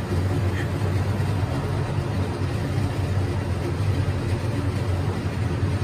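Kitchen range hood exhaust fan running with a steady low hum.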